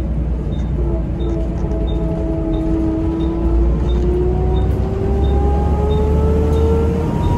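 Volvo B7RLE bus heard from inside the saloon as it accelerates, its ZF automatic gearbox whining in gear, the whine rising slowly and steadily in pitch over the low rumble of the six-cylinder diesel. A faint high tick repeats about every two-thirds of a second.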